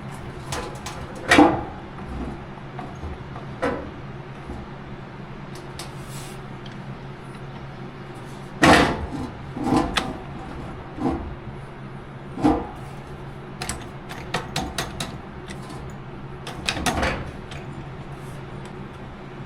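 Irregular knocks and clanks of metal parts being handled and set down, over a steady low hum. The louder knocks come about a second in and near the middle, with quick little clusters later on.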